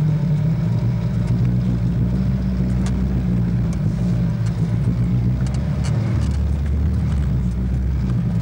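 Off-road 4x4's engine running steadily as it drives along a rough dirt track, heard from inside the cab, with scattered clicks and knocks. Its low note shifts a little past halfway through.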